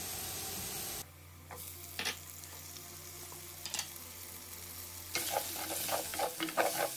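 Diced potatoes and fresh vegetables frying in hot oil in a clay pot, sizzling as they are stirred with a wooden spoon. The sizzle drops to a quieter stretch with a few sharp knocks after about a second, then comes back louder and crackling about five seconds in.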